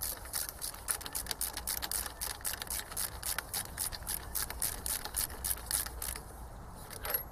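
Quick, uneven metallic clicking, about five clicks a second, as a Delphi common-rail diesel injector and its fittings are worked into place by hand. The clicking stops about six seconds in, and one sharper click follows near the end.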